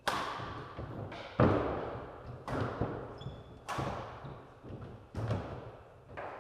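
Badminton rally: a racket hitting the shuttlecock six times, about a second apart, each sharp crack ringing out in the echoing hall.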